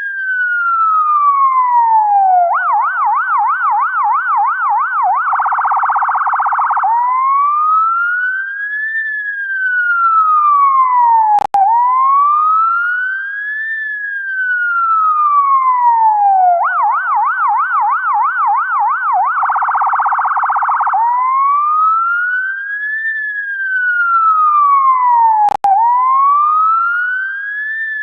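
UK ambulance electronic siren cycling through its tones: a slow wail rising and falling over about four to five seconds, then a fast yelp of about four sweeps a second for around three seconds, then a harsher, very rapid warble for about a second and a half before the wail returns. The pattern repeats about every 14 seconds, and twice the sound cuts out for an instant with a click.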